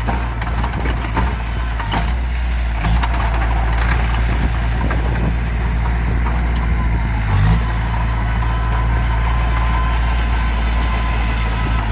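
Heavy diesel earthmoving machinery (bulldozer and dump trucks) running steadily with a deep engine drone, with scattered knocks and a faint steady whine in the second half.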